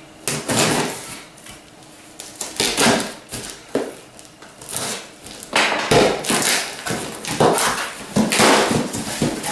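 Packing tape on a cardboard shipping box being slit with a small blade and the cardboard flaps worked loose: a string of short tearing, scraping and rustling noises at irregular intervals.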